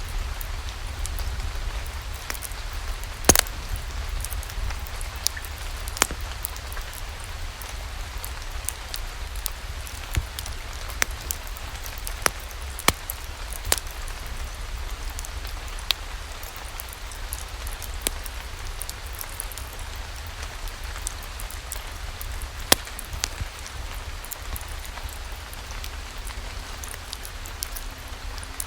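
Steady rain mixed with a log fire in a fireplace: an even hiss of rain over a low rumble, broken by a dozen or so sharp, irregular pops and crackles.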